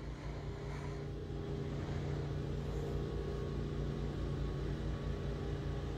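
A steady low mechanical hum: constant low tones over a faint rumble, growing a little louder over the first couple of seconds.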